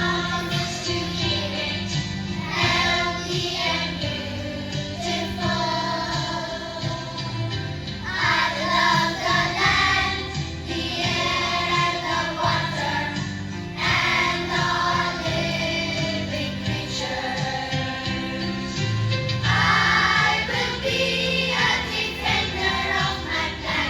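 A song playing, with a group of voices singing over a steady beat in the backing music.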